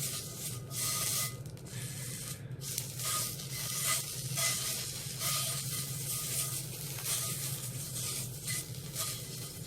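Beef fat sizzling as it is rubbed back and forth across a hot frying pan to grease it, the hiss swelling and dipping with each stroke over a steady low hum.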